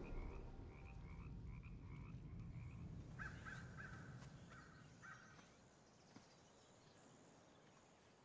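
Faint outdoor wildlife calls: a quick run of short chirps, then four lower chirps about three seconds in. A low rumble dies away in the first second.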